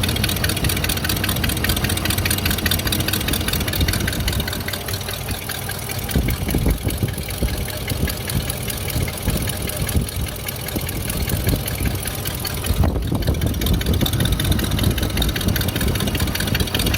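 Engine idling steadily with a fast, even mechanical ticking over its hum: the unwanted noise the owner hears from the left side of the engine.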